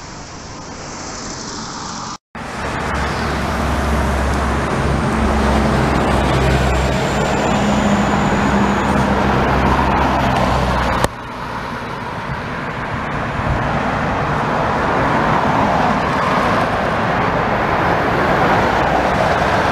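Road traffic: cars passing along a street, with a steady low engine hum through the first half. The hum cuts off suddenly about eleven seconds in, and passing traffic continues after it.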